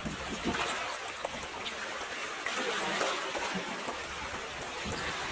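Water rushing and splashing: a steady hiss with small scattered ticks of droplets.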